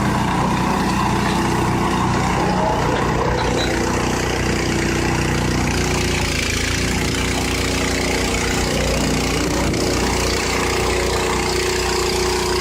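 A farm machine's engine running steadily, its pitch shifting slightly a few times.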